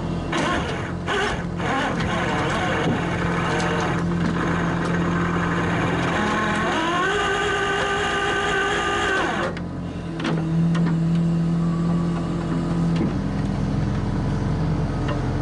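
Rollback truck running while its winch drags a heavy milling machine up the tilted bed: a steady engine note with a few knocks near the start, and a whine that rises in pitch, holds for a couple of seconds and cuts off.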